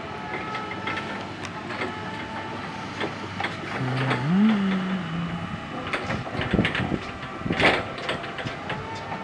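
Jungheinrich ETV 216 electric reach truck driving and turning, its drive giving a steady electric whine. About four seconds in a low hum rises and holds briefly, and several sharp clicks and knocks follow near the end.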